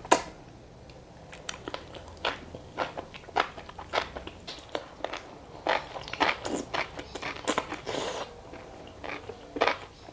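Close-miked bites and chewing of crunchy food: irregular sharp crunches, coming thicker about halfway through.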